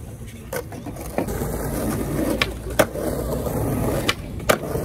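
Skateboard wheels rolling over stone paving tiles, a steady low rumble broken by about six sharp clacks of the board against the pavement.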